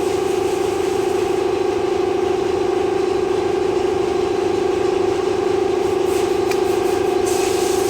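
A pump motor running with a steady, even hum. A few faint light clicks come near the end.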